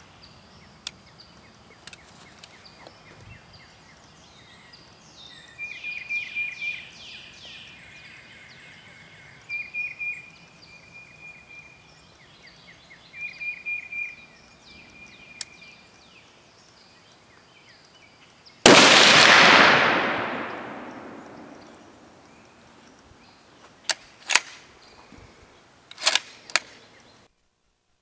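A single shot from a .338 Remington Ultra Mag Browning A-Bolt II rifle fitted with a three-port muzzle brake, about two-thirds of the way in, with a long echo dying away over a few seconds. Before it, birds chirp in short bursts. A few sharp clicks follow near the end.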